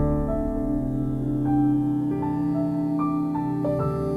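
Ambient background music: a slow keyboard melody of single held notes over a sustained low chord.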